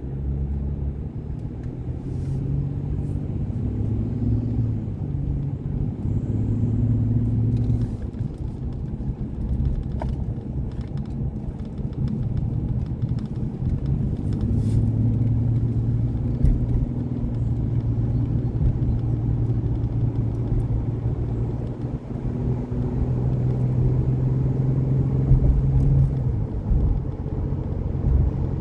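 Vehicle engine and road rumble while driving, the engine note shifting up and down in pitch several times.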